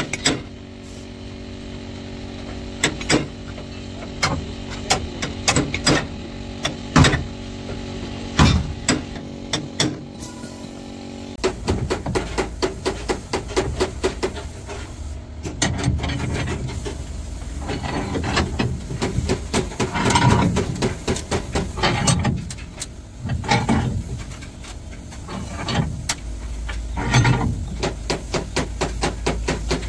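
Sharp metal knocks and clanks of steel bars and hand tools on the bare sheet-steel floor of a stripped truck cab. A steady machine hum runs under the first half and cuts off suddenly, after which the knocks come thicker and faster.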